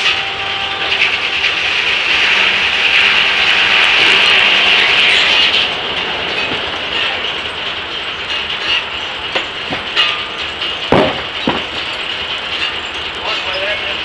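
Large blade of a steam-powered 1880s Gaar Scott circular sawmill ripping through a Chinese elm log, a loud high hiss of the cut that stops about six seconds in as the blade comes out of the wood. After that the blade spins free amid mechanical clatter, with two sharp knocks about eleven seconds in.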